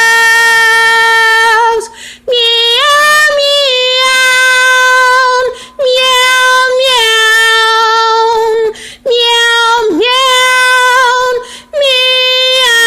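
A woman's solo voice singing in long held, steady notes, phrase after phrase, with short breaks for breath between them.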